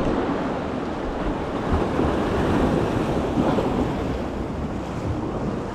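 Sea swell washing against rocks, with wind buffeting the microphone.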